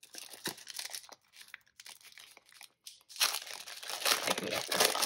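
Clear plastic sleeve crinkling as sticker sheets are slid out of it, sparse at first and denser and louder over the last two seconds.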